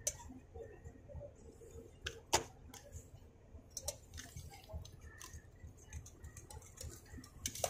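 Scattered light clicks and taps of a metal spoon, jars and bottles being handled while spices and oil go into a small metal mixing tin, the sharpest tap a little over two seconds in. A faint low rumble runs underneath.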